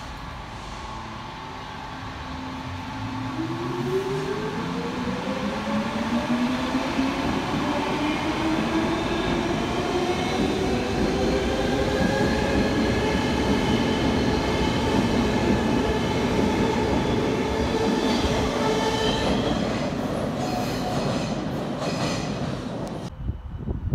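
Stockholm metro train of the older blue Cx stock pulling out of an underground station. Its traction motors give a whine that rises steadily in pitch as it accelerates, over a growing rumble of wheels on rail as the cars pass. The sound cuts off abruptly near the end.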